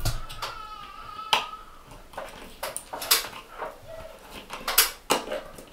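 Small clicks and taps of wire cores and a screwdriver being worked into the terminal block of a ceiling light fitting, the loudest a few sharp clicks spread through the last four seconds. A high, wavering whine sounds for about the first second and a half.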